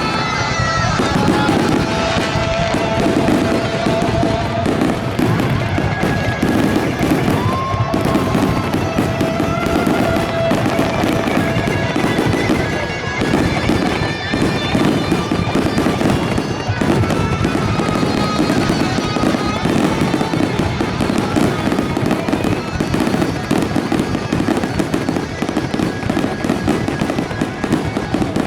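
Fireworks display: a dense, unbroken run of popping and crackling, loud and steady throughout.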